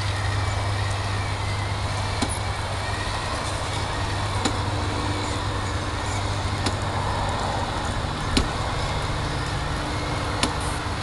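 Scratch-built 1/10-scale all-steel R/C bulldozer running while pushing dirt: a steady low hum over a noisy grinding layer, with a sharp click or knock about every two seconds, five in all.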